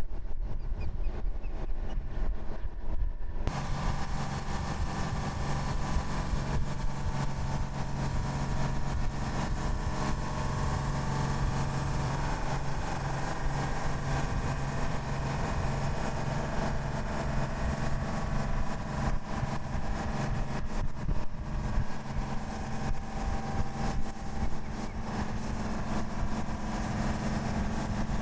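Low rumble, then, about three and a half seconds in, an abrupt change to a steady engine drone with a constant low hum, from the vehicle towing the shuttle external tank's transporter at walking pace.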